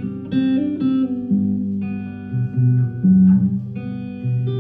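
Guitar playing an instrumental passage between sung lines, single plucked notes ringing out one after another.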